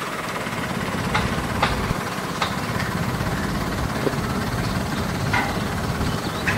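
Maruti Suzuki Celerio's 998 cc three-cylinder engine idling: a steady low rumble with a few faint ticks.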